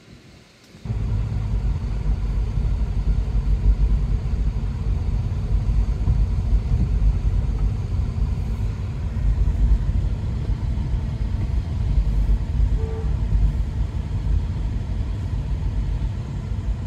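Steady low rumble of a car in motion heard from inside the cabin, engine and tyres on the road, starting abruptly about a second in.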